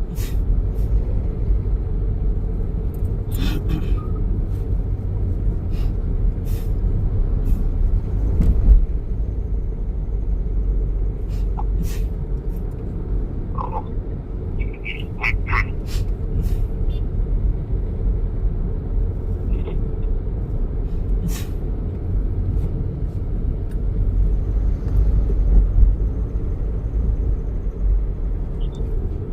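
Steady low rumble of background noise over an open phone line on hold, with scattered clicks and a few faint, distant voices about halfway through.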